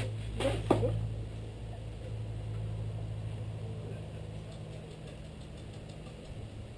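Steady low hum of a running motor. About half a second in come brief voice sounds and a sharp knock.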